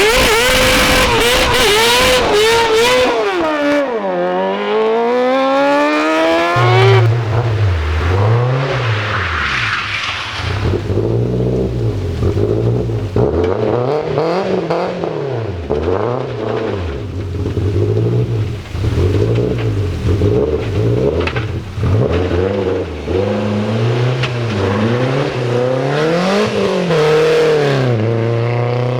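Car engines revving hard, pitch sweeping up and down. From about seven seconds in, a deep engine note rises and falls again and again in waves.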